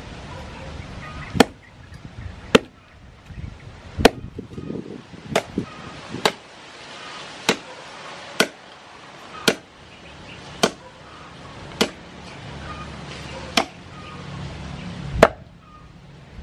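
Heavy meat cleaver chopping a raw pork leg on a round wooden chopping block: about a dozen sharp chops, roughly one a second.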